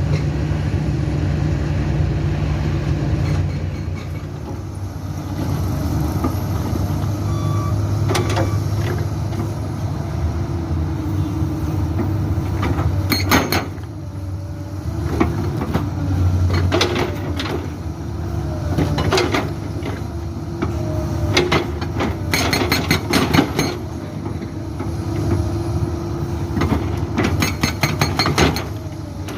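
Komatsu PC200-8 excavator's diesel engine running steadily, with several short bursts of rapid hammering from a Soosan SB81 hydraulic breaker striking rock, mostly in the second half.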